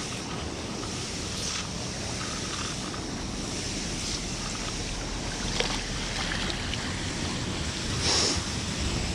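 Steady rush of wind on the microphone while a fishing magnet on a wet rope is hauled up out of canal water, with faint water noise and light knocks. There is a brief louder rush near the end, as the magnet and its catch of scrap metal come out.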